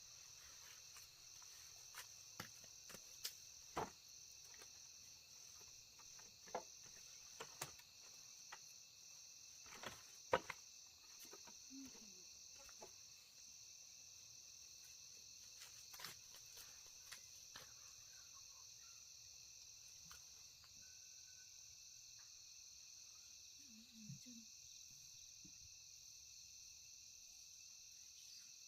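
A steady high-pitched insect chorus, with scattered sharp clicks and knocks of things being handled, the loudest about ten seconds in.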